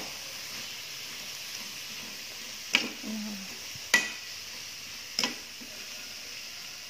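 Jengkol slices sizzling in a little oil in a wok while a metal spatula stirs them. Three sharp clinks of the spatula against the pan come near the middle, each about a second apart.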